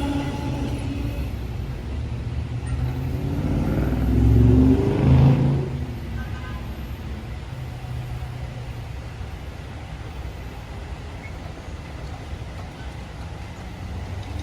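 A road vehicle accelerating past, its engine pitch rising, loudest about four to five seconds in, then fading to steady traffic noise.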